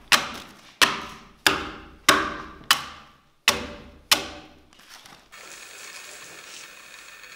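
Broad axe hewing a timber: seven sharp blows into the wood, about one every two-thirds of a second, each ringing briefly. A little after five seconds in the blows stop and only faint steady room noise remains.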